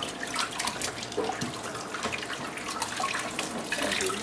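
A hand-held stone scraped back and forth over a flat grinding stone, crushing moist chopped seasoning in irregular gritty strokes.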